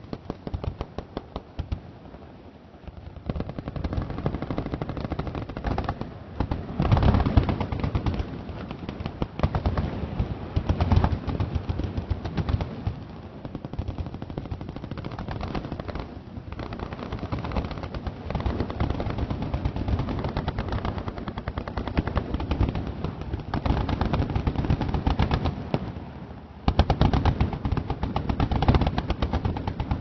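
Many machine guns firing at once along a firing line: dense, nearly continuous automatic fire, with louder heavy stretches about seven and eleven seconds in and again after a brief lull near the end.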